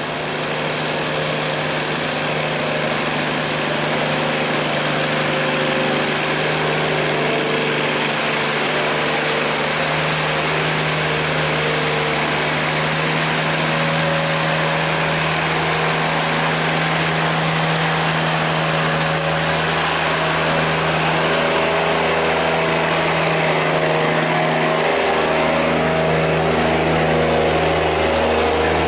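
Engine of a heavily laden sand barge running hard at high throttle, growing louder over the first few seconds and then holding steady.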